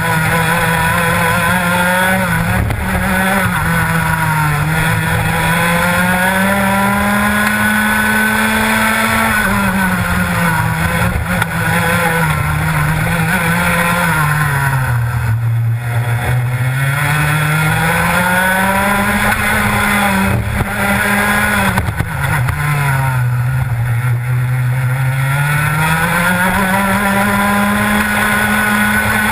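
Rotax Max 125cc single-cylinder two-stroke kart engine heard close up from on board, racing hard: its pitch climbs steadily along the straights and drops off as the driver lifts for corners, most deeply about halfway through and again about four-fifths through, before rising again.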